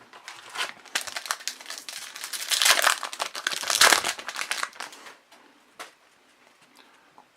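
Trading-card pack wrapper being torn open and crumpled: a dense crinkling for about four and a half seconds, loudest around the middle, then dying away to a faint click or two.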